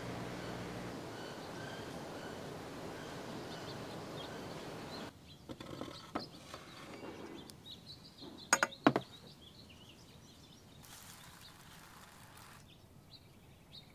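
Steady outdoor background noise with faint, scattered bird chirps. The background then drops abruptly, and a few sharp knocks or clicks follow, the loudest sounds here.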